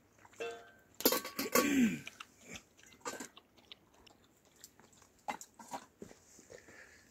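A dog crunching and chewing its food, with irregular bites and clicks. The loudest moment comes between one and two seconds in: a cluster of sharp clicks and a short vocal sound falling in pitch.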